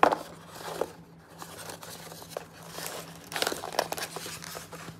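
A molded paper-pulp box being handled and opened, with the tissue paper inside crinkling in the hands in irregular rustles, busiest a little past the middle.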